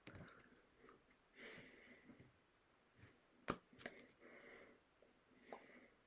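Near silence: faint breaths and soft mouth noises, with a short click about three and a half seconds in.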